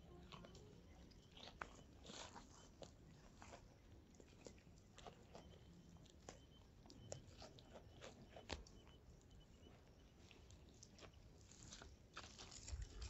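Faint, scattered crunches and small snaps in dry thorn-forest vegetation, growing louder near the end.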